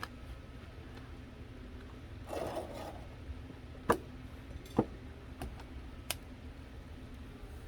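Handling noises: a brief rustling scrape, then four sharp clicks or knocks over about two seconds.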